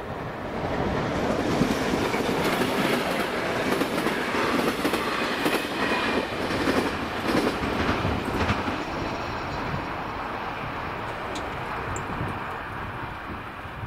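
Locomotive-hauled passenger train's coaches rolling over the level crossing, their wheels clacking over the rail joints. The sound fades as the last coach passes, about eight to nine seconds in.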